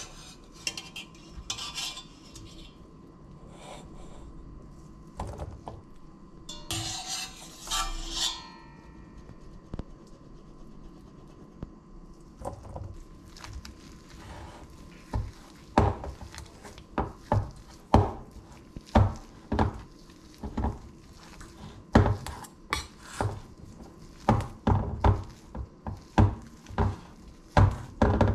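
Boiled potato chunks being scooped from a steel pot with a wire skimmer into a stainless steel bowl, with scattered clinks and a scrape. Then a fork mashing the potatoes against the bottom of the steel bowl, a run of sharp metallic knocks about two a second.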